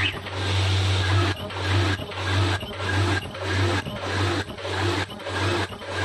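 Zipper slider bag making machine running: a steady hum with a machine cycle repeating about one and a half times a second.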